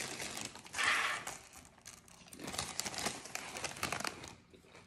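Crinkling of a plastic Doritos chip bag as a hand rummages inside it and pulls out a chip, in short irregular bursts.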